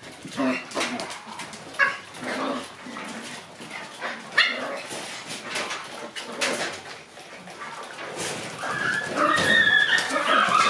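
Shiba Inu puppies yipping, whining and barking as they play, with short sharp yips scattered through and a busier stretch of overlapping whines and yips near the end.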